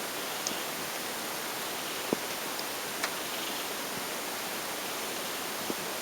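Steady, even hiss with no rise and fall, broken by a few faint clicks.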